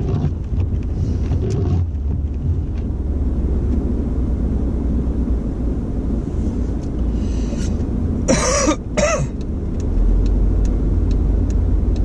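Car's engine and tyre rumble heard from inside the cabin while driving on a snowy road, growing louder about ten seconds in. Two short coughs break in a little past eight seconds.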